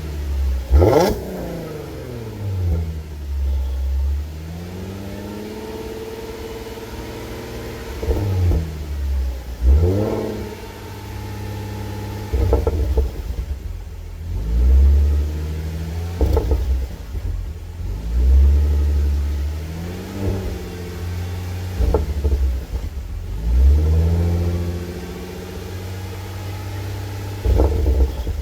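Exhaust of an Audi S4's 3.0-litre supercharged V6 through a 2.5-inch HG Motorsport cat-back with stock cats. The revs rise sharply about seven times, and after each rise the engine note falls back slowly with a deep burbling rumble on the overrun. The burbles are natural, with no burble tune in the engine software.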